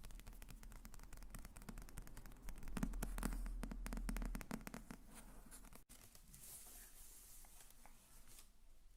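Close-miked ASMR tapping and scratching on an object: a fast run of light clicks that grows loudest about three to four seconds in, then a sudden cut to a softer, hissy scratching.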